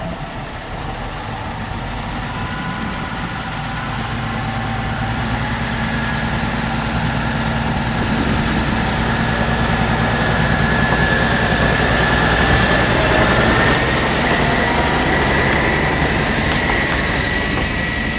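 Diesel-hydraulic narrow-gauge locomotive (MÁV Mk48) running, with a low engine drone and a high whine that slowly rises in pitch, growing gradually louder over the first dozen seconds and then holding steady.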